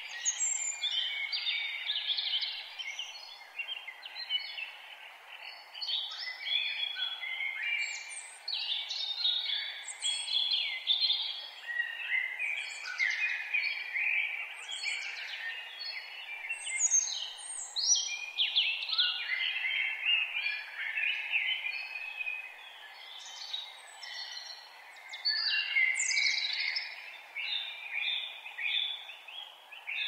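Several songbirds singing at once: a continuous, overlapping mix of chirps, trills and short song phrases, with no pause. Underneath runs a faint, steady background rush.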